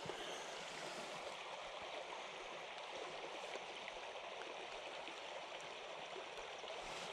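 Shallow stream running over stones, a steady, gentle rush of water.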